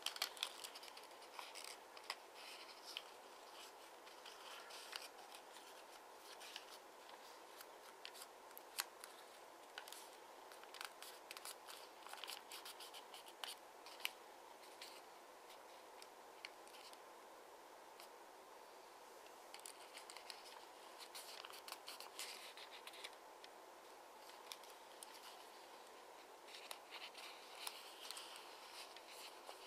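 Sheet of 15 cm double-sided origami paper being folded and pressed into creases by hand: faint crisp crinkling and small clicks of paper, coming in bursts with quieter stretches between.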